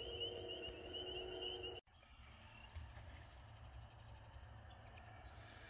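Faint outdoor ambience by a marsh: a high, steady trill and low background rumble. The trill cuts off abruptly about two seconds in, leaving only the quiet rumble.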